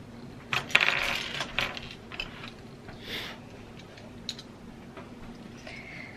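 Small plastic Lego pieces clattering and clicking as they are picked out of a loose pile on a wooden tabletop, with a short flurry of rattling about a second in and a few single clicks after.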